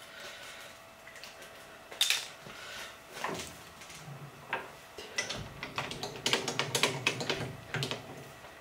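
Irregular metal clicks and clatter of a hand working a three-jaw lathe chuck and resetting the steel bar in it, with a few separate knocks early on giving way to a quick run of clicks about five seconds in.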